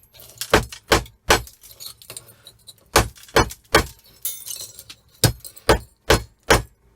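Hammer blows breaking open old electrical fuses to get at the copper inside: about ten sharp strikes in three quick runs of three, three and four.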